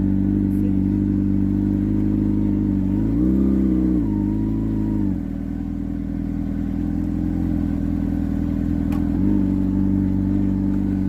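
A small vehicle's motor running at low speed with a steady hum. Its pitch rises briefly about three seconds in, drops back lower at about five seconds, and steps up slightly near nine seconds.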